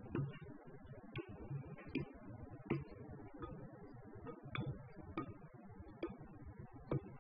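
Metal spoon clicking and scraping against a bowl while stirring thick tahini paste: faint, light clicks about once a second, unevenly spaced.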